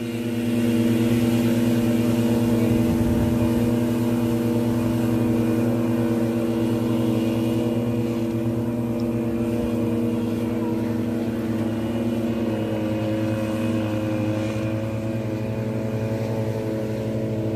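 Motorboat engine running steadily at an even pitch, heard close up.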